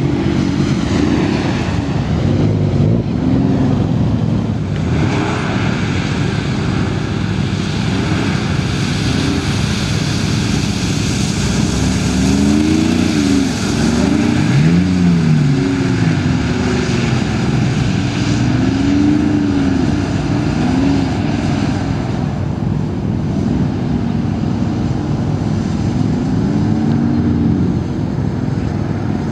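Mercedes-Benz G-Class SUV engine revving up and down over and over as the vehicle slides through drifts, with a hiss of tyres on a wet surface.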